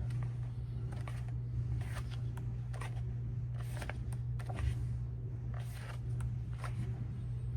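Paper handling from an album photobook and inserts: short rustles and light taps about once a second. A steady low hum runs underneath.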